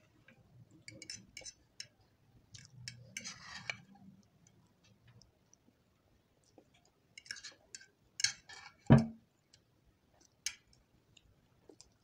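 Metal fork clicking and scraping against a plate as instant noodles are picked up and eaten, with brief eating mouth noises between the clicks. One louder knock comes about nine seconds in.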